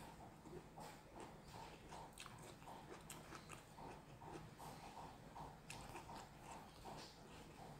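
A person chewing food close to the microphone, a soft steady rhythm of about three chews a second with occasional sharp mouth clicks.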